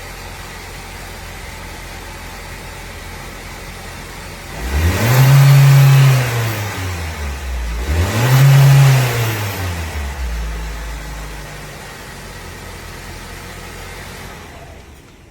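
Car engine idling, then revved twice in a row: each time the pitch climbs, holds briefly and drops back, before it settles back to a steady idle.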